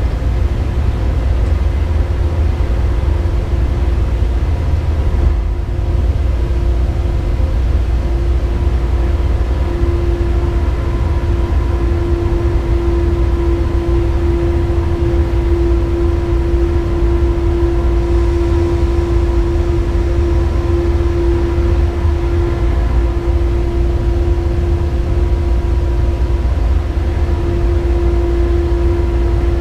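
Cab noise of a Siemens class 189 (ES64F4) electric locomotive: a steady low rumble with a steady electric hum over it, which grows louder about ten seconds in.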